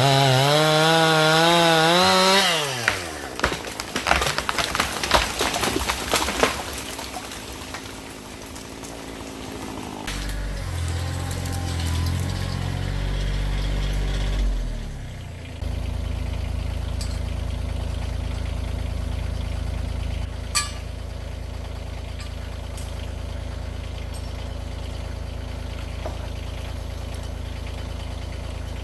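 Chainsaw running at high revs with a wavering pitch under load, then throttling down about two and a half seconds in, followed by a few seconds of sharp cracking and snapping. Later an engine comes in, first with a wavering note and then idling steadily through the end.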